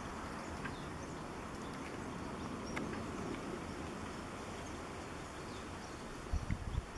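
Outdoor garden ambience: a steady low rumble and hiss with faint bird chirps. A few dull low thumps near the end.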